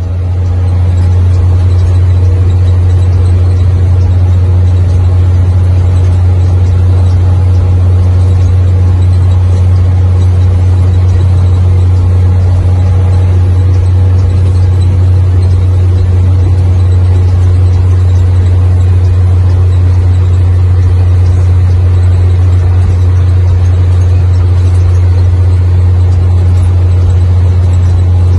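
Mercedes-Benz 1620 truck's six-cylinder diesel engine running steadily at cruising speed, a loud, even low drone heard from inside the cab.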